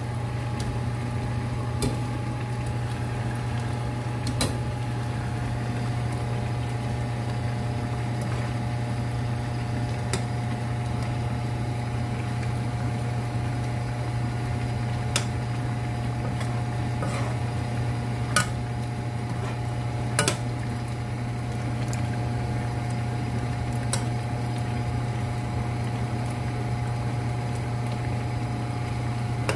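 A steady low hum with a thin whine above it, under a pan of thick chicken-and-potato sauce simmering on the cooktop. A metal spoon clinks against the skillet a handful of times as the stew is stirred.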